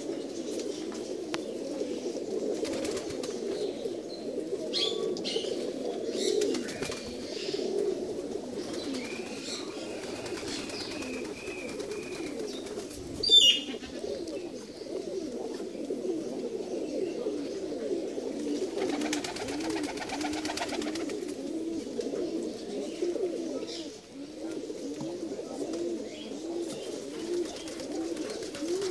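A flock of domestic pigeons cooing without a break, many birds overlapping in a low, rolling chorus. About halfway through comes one brief sharp sound, the loudest moment, and a few seconds later a short raspy rustle.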